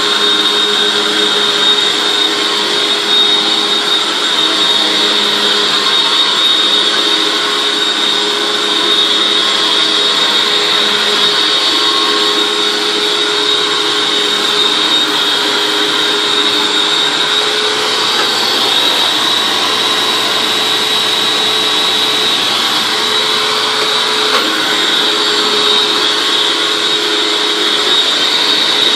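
Hoover WindTunnel Anniversary Edition self-propelled upright vacuum cleaner running steadily at full speed, a high motor whine over a rush of air.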